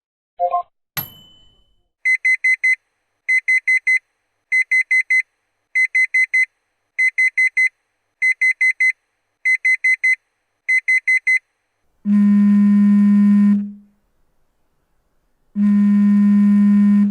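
A run of electronic notification sound effects. It opens with a short two-note blip and a ding, then a digital alarm-clock beep sounds in groups of four rapid high beeps, eight groups about a second apart. It ends with two long, low buzzer tones of about a second and a half each.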